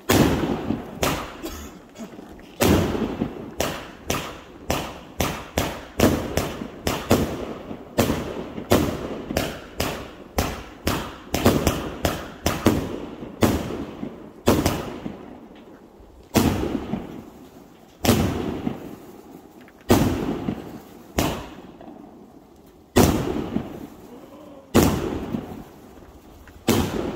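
Aerial fireworks bursting overhead: a long string of sharp bangs, each dying away, coming quickly and irregularly in the first half and then spaced one to two seconds apart.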